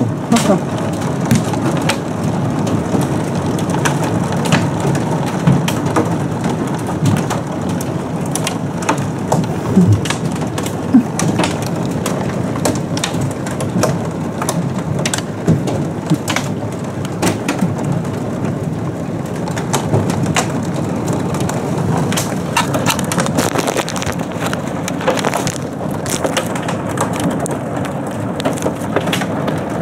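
Heavy rain and hail pelting a car's body, a dense hiss full of sharp ticks from hailstones striking.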